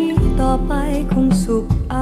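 Band music: a jazz-style arrangement of a Thai pleng phua chiwit (songs-for-life) song. A melody line bends in pitch over sustained low notes.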